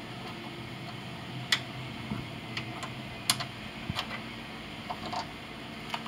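A few sharp, irregular metallic clicks as a socket wrench backs out the 13 mm bolt and the lower hood latch catch of a Jeep Wrangler JK is worked loose.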